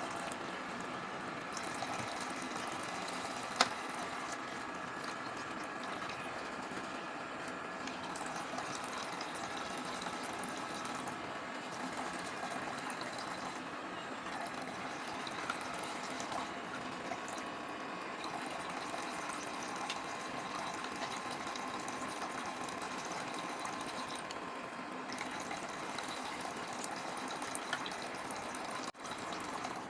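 Steady running water, with a single sharp click a few seconds in.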